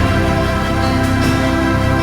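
Background music playing.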